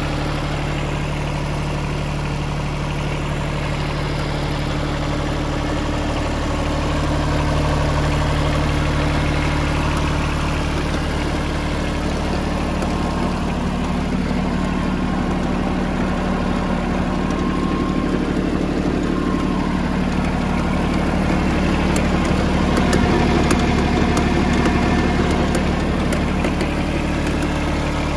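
Yanmar F6 compact tractor's diesel engine idling steadily. Its speed rises a little about halfway through.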